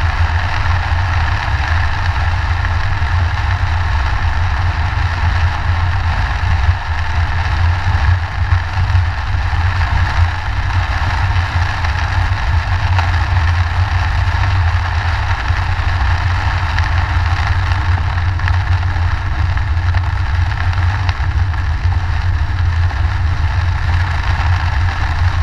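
Car driving through heavy rain, heard from inside the cabin: a steady low engine and road rumble under an even hiss of rain and tyre spray on the car.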